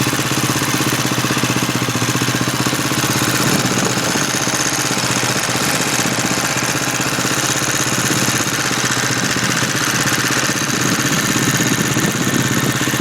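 2011 Husqvarna TE630's single-cylinder four-stroke engine idling steadily with a whirring mechanical 'blender noise', which the owner doubts is normal.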